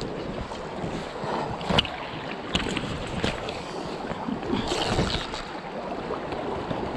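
Steady rush of river water with wind buffeting the microphone, broken by a few sharp knocks.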